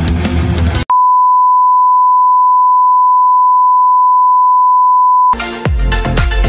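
A single steady, high, pure beep tone held for about four and a half seconds. Music with guitar cuts off abruptly just before it, and music with a beat comes back in as it stops.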